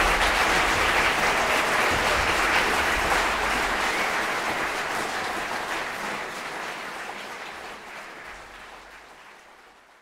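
A concert hall audience applauding, with dense clapping that fades away gradually over the second half.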